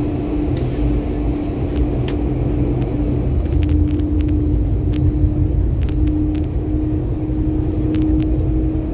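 Ankeng light rail car running along the track, heard from inside the car: a low rumble from the wheels on the rails, a steady hum held at one pitch, and a few scattered sharp clicks.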